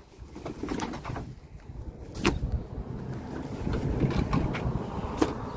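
Heavy vinyl-covered bouncy castle mats being shifted and stacked on the wooden floor of a van: a continuous low shuffling and rustling, with sharp knocks about two seconds in and again near the end.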